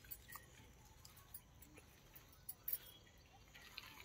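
Near silence, with faint scattered rustles and soft ticks of hands working loose soil against the base of a straw-thatch wall.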